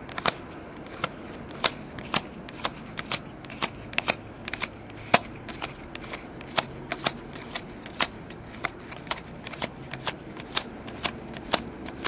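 Trading cards being flipped through one at a time by hand, each card giving a sharp snap or click, about two or three a second at an uneven pace, as a stack is checked for cards stuck together.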